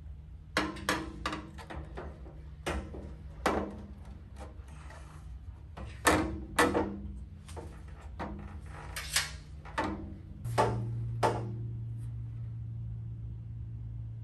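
Aluminium radiator with electric fans being worked down into a truck's steel radiator support: a string of knocks and clunks as it bumps against the metal. A steady low hum joins about ten seconds in.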